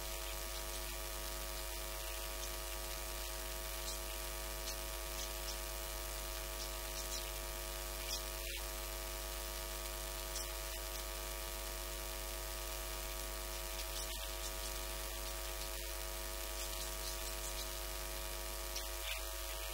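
Steady electrical mains hum with a stack of buzzing overtones and a faint hiss, unchanging throughout.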